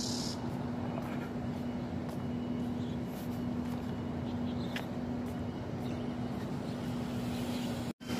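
Road-traffic noise, steady and even, with a constant low hum under it. A high insect buzz breaks off right at the start, and the sound drops out for an instant near the end.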